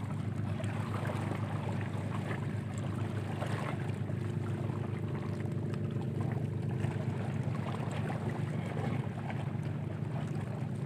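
Steady low rumble of wind on the microphone and sea surf along a rocky shore, with a few faint scattered clicks.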